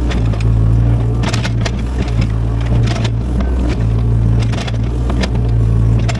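Excavator's diesel engine running steadily, a constant low drone, with irregular knocks and scrapes from the machine digging clay.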